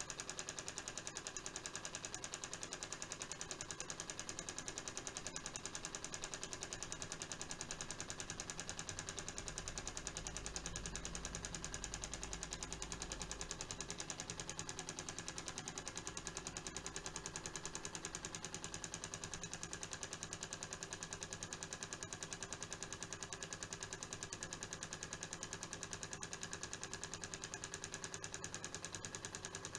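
Small tea-light-heated Stirling engine running: an even, rapid mechanical ticking from its flywheel, crank and beam linkage. A low rumble joins in for a few seconds about ten seconds in.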